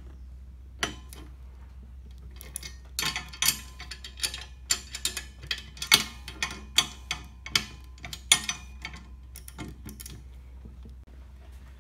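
Ratchet and socket clicking in quick, irregular runs as bolts on steel handle brackets are tightened, starting about a second in and stopping shortly before the end.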